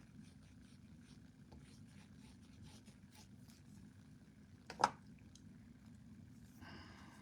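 Small painted wooden craft pieces being handled on a work table: faint clicks and rustling, with one sharp knock about five seconds in, over a low steady hum.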